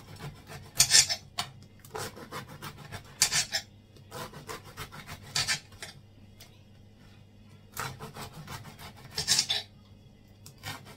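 Kitchen knife sawing through a stale, hard-crusted baguette: repeated rasping back-and-forth strokes, with louder crunching bursts every two to four seconds as the blade cuts through the crust.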